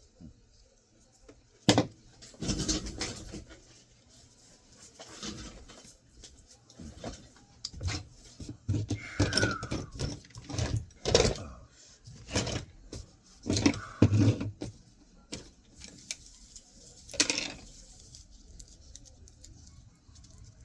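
Hand tools and the metal casing and parts of a hard drive knocking and clattering together during disassembly, about a dozen sharp knocks spread through, with a short falling squeak about ten seconds in.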